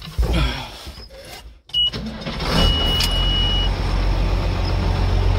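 Big Ford tractor's diesel engine being started: a short high warning tone, the engine catches about two seconds in and settles into a steady idle, with a second high warning tone lasting about a second.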